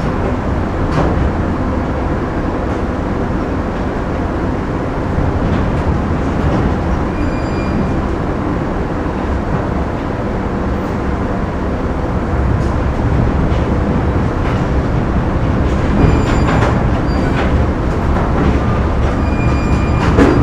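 Factory machinery ambience: a loud, steady heavy rumble with scattered sharp metallic knocks, and faint brief tones about a third of the way in and again near the end.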